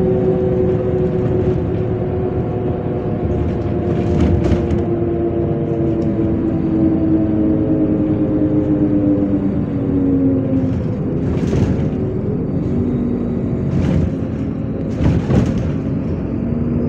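MAZ-103 city bus under way, heard from inside: a steady engine and drivetrain drone over road rumble, falling slowly in pitch over about the first ten seconds. A few brief sharp noises cut through it about four seconds in and three times near the end.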